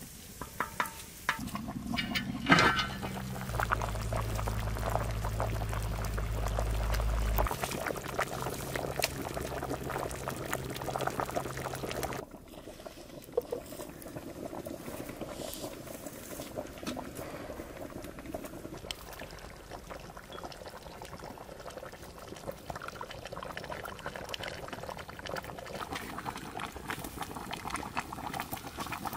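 Liquid bubbling at the boil in cooking pots over a wood fire, with small crackles from the burning wood. A louder stretch with a steady low rumble cuts off abruptly about twelve seconds in, leaving a quieter, even bubbling.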